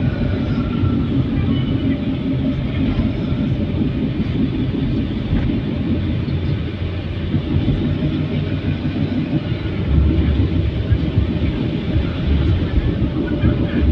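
A car driving on a wet road in the rain: a steady low rumble of engine and tyres with a hiss above it. The deep rumble grows louder about ten seconds in.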